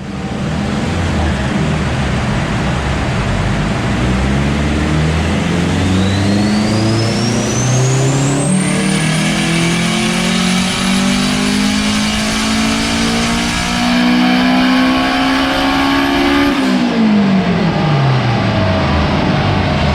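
Turbocharged Honda K20 four-cylinder engine in a DC2 Integra pulling hard under load, its revs climbing steadily for about sixteen seconds with a high whistle that climbs and then holds, then falling away near the end as it comes off the throttle. The engine pulls all the way through without misfiring, now that faulty injector wiring has been bypassed.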